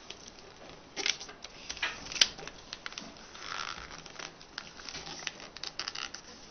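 A sheet of paper being folded and creased by hand: irregular rustling and crinkling with sharp crackles, the sharpest about two seconds in.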